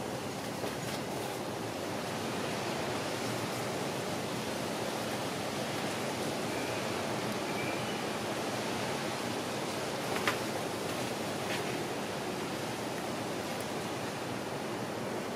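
Steady outdoor wind noise, an even rushing hiss, with a single short click about ten seconds in.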